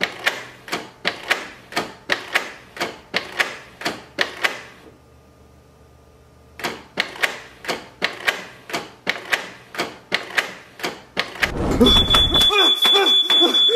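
Canon inkjet printer running, with a regular series of mechanical clicks about two to three a second over a faint motor hum, pausing for a couple of seconds midway. Near the end comes a loud low whoosh as the printer goes up in flames, followed by a thin high steady whistle and louder jumbled noise.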